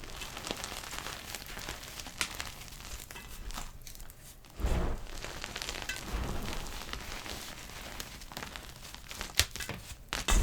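Block of gym chalk being crushed, crumbling with soft, dense crackles, and a couple of heavier crunches about halfway through.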